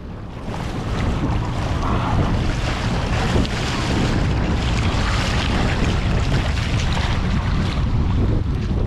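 Boat under way on open ocean water, with water rushing and splashing and heavy wind noise on the microphone; it fades in over the first second.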